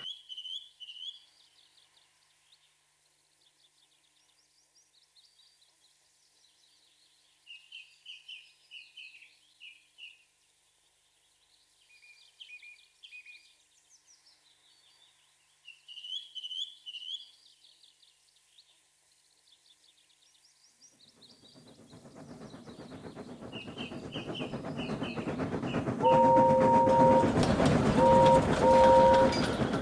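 Birds chirping in short repeated phrases, then a steam train approaching with a rumble that grows steadily louder from about two-thirds of the way in. Near the end its whistle blows three times: one long blast and two shorter ones.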